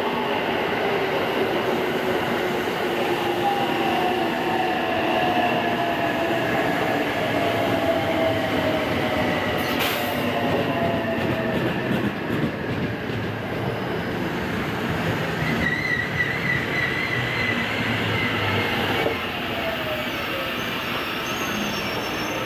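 683-series electric express train rolling slowly past at close range, the whine of its motors falling in pitch as it slows. A pulsing high squeal from the wheels and brakes comes in about two-thirds of the way through, and a thinner squeal near the end, as it comes almost to a stop.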